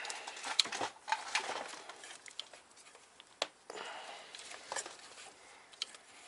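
Scattered light clicks, taps and rustling as hands work the accessory drive belt free around the tensioner and pulleys in an engine bay, with a few sharper clicks.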